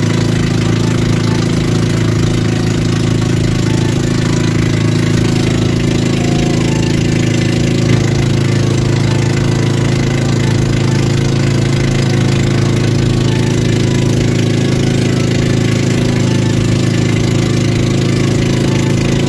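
Small fishing boat's engine running at a steady speed, with a low, even hum.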